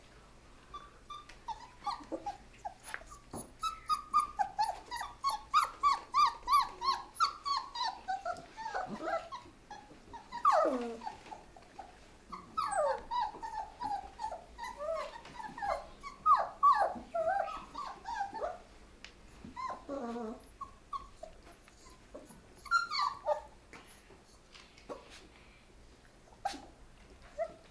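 Month-old Great Pyrenees–Anatolian Shepherd cross puppies whimpering and yipping. Many short high whines come in quick runs, mixed with a few longer cries that fall in pitch.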